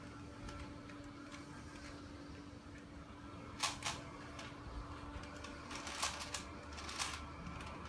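Scattered sharp plastic clicks of a twisty puzzle being turned in the hands, a handful of clicks in the second half, over a faint steady hum.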